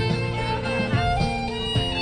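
Instrumental music playing: a melody of held notes over a low bass line.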